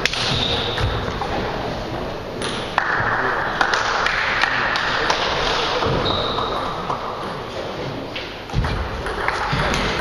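Table tennis ball clicking off the rubber paddles and bouncing on the table, in irregular sharp pings, with steady noise of a large hall behind.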